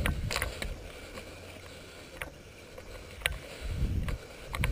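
Low rumble of wind and movement on a body-worn camera's microphone as the player moves across open ground, swelling near the start and again near the end. A few sharp, separate clicks sound through it.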